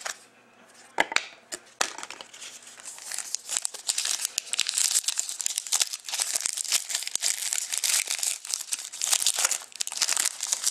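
A few light clicks and taps, then a trading-card pack's shiny wrapper crinkling steadily from about three seconds in as it is torn open and peeled back off the cards.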